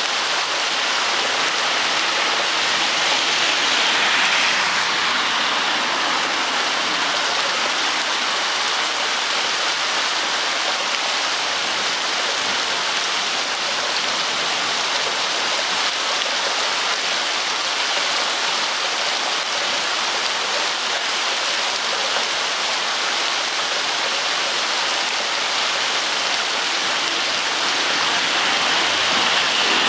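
Steady, heavy rain: a dense, even hiss that swells slightly about four seconds in and again near the end.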